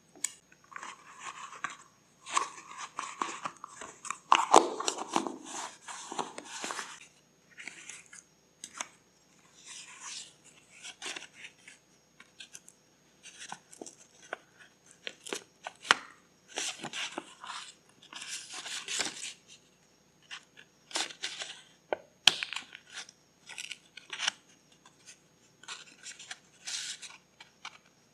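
Paper being handled close up for journal crafting: rustling and tearing in many short, separate bouts, with a few sharp clicks in between.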